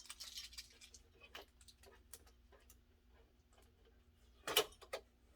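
Light scattered clicks and taps of packaging being handled and pulled off a new vinyl cutting machine, with a louder burst of clatter about four and a half seconds in.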